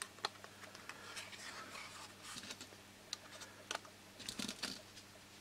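Small plastic spring clamps clicking and clattering faintly as they are opened and clipped one after another onto a glued strip of wood, in irregular light clicks with a small cluster near the end.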